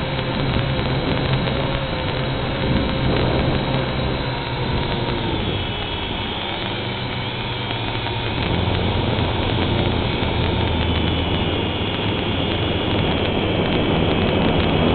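Wltoys V686G quadcopter's motors and propellers running steadily in flight, a continuous whirring over hiss, with the pitch shifting about halfway through as the throttle changes.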